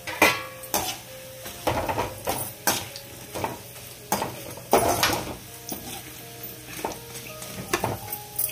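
A spoon stirring fried pakoras in a metal kadhai, scraping and knocking against the pan in irregular strokes, over the sizzle of onions frying in oil. The loudest knocks come just after the start and about five seconds in.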